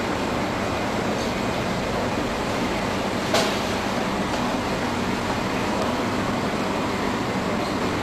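Steady hissing background noise with no clear pitch, and one sharp click about three and a half seconds in.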